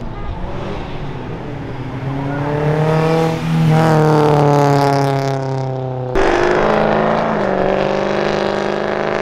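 Car engines accelerating hard along a street: one engine revs up, rising in pitch about three seconds in, then breaks off suddenly about six seconds in and another engine takes over, pulling away with a steady note.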